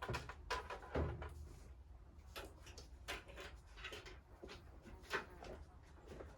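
Handling noises during repair work: a run of light knocks and clicks from parts and tools being moved. The loudest knock comes about a second in, with another near the end.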